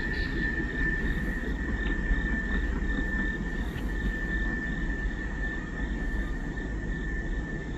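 Low rumble of a loaded coal train's last cars rolling away over the rails, with a steady thin high whine and faint regular chirps over it.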